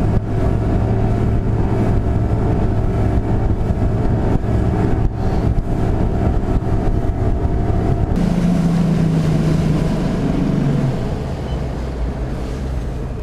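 Bass boat's outboard motor running under way across the lake, with air rushing past. About two-thirds of the way in the engine note shifts, and toward the end the sound eases off as the boat is steered and slowed.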